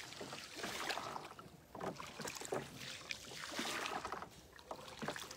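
Faint, irregular splashes and light knocks of water around a small wooden boat gliding along a calm canal.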